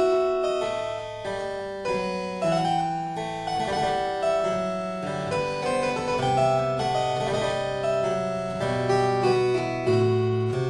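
Background music played on a keyboard instrument: a flowing melody over held bass notes.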